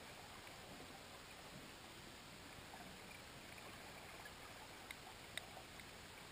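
Faint, steady underwater hiss, with a few faint short chirps in the first seconds and three short sharp clicks near the end, the second the loudest.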